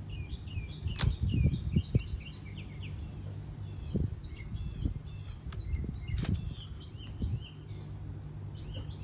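Small birds chirping over and over, against a steady low rumble, with a few sharp knocks and clunks, the loudest about a second in and another about six seconds in.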